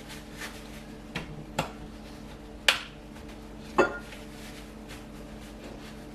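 Kitchenware clattering: four short knocks and clinks, the two loudest about two and a half and four seconds in, over a steady low hum.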